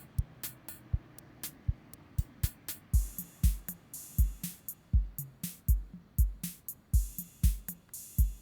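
Background music with a drum-machine beat: light clicking percussion at first, then a deep kick drum comes in about three seconds in, about two beats a second.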